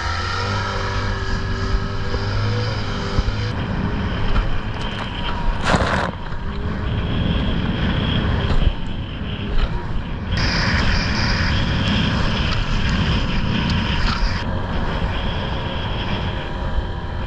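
Small outboard motor running steadily as an inflatable dinghy travels under way over choppy sea, with water rushing past the hull. There is one short, loud burst of noise about six seconds in.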